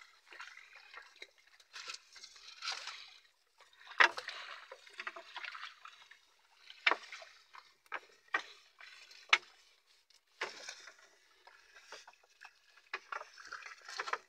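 A wooden paddle stroking and splashing in the water beside a small outrigger boat, with water sloshing. There are several sharp knocks of the paddle on the hull, the loudest about four seconds in and others around seven and nine seconds.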